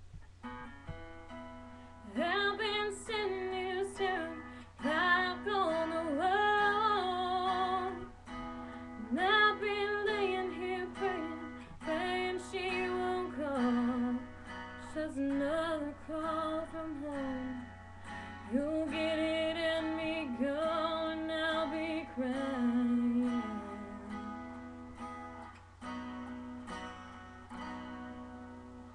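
A woman singing a slow ballad in sustained phrases, with vibrato, over acoustic guitar accompaniment.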